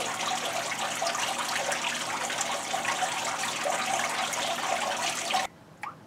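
Homemade evaporative cooler running: water from its small pump trickling down the honeycomb cooler pad into the plastic tote, with the 20-inch box fan blowing through it, a steady rush of water. The sound cuts off suddenly about five and a half seconds in, leaving a few faint drips.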